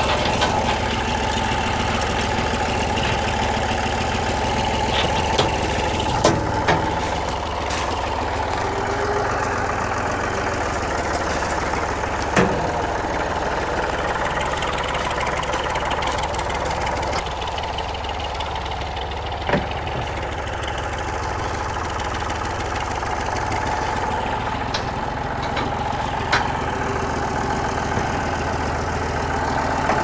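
Tractor engine running steadily, with a handful of brief sharp knocks scattered through it.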